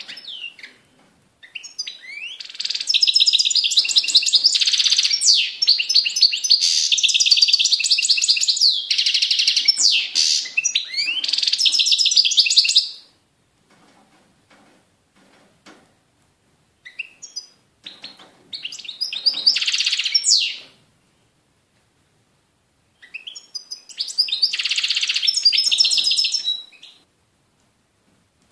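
European goldfinch singing: a long run of fast, tinkling twitters and trills lasting about eleven seconds, then, after pauses of a few seconds, two shorter bursts of song.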